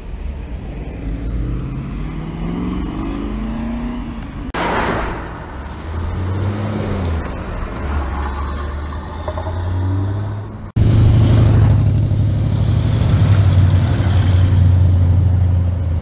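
Classic car engines driving past on the street. One engine speeds up with a rising pitch, and a short whoosh follows. After a sudden change about two-thirds of the way in, a louder, deep, steady engine rumble takes over.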